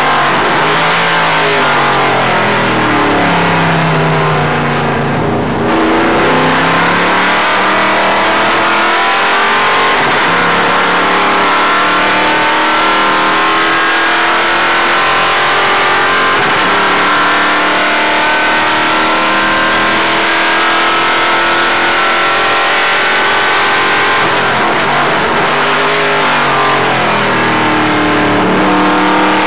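Race car engine heard from inside the stock car's cockpit at full racing pace. The pitch falls and the level dips briefly about five seconds in. It then climbs in long rising sweeps under acceleration, drops again near the end, and rises once more.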